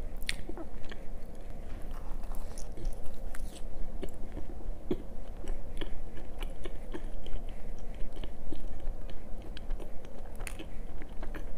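Close-miked eating of a glazed doughnut: a bite just after the start, then steady chewing with many small mouth clicks throughout.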